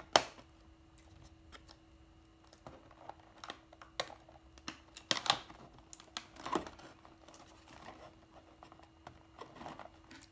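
Scattered sharp snips and clicks as the ties holding toy parts in a cardboard packaging tray are cut, with light handling of cardboard and plastic; the loudest click comes just after the start.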